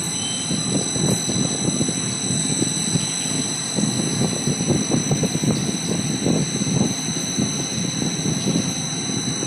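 Vertical engine head surface grinding machine running: its electric motor spins the grinding wheel free of the work while the wheel speed is turned up toward 750 RPM for grinding an aluminium head. The machine makes a steady mechanical whirr with a steady high-pitched whine over it.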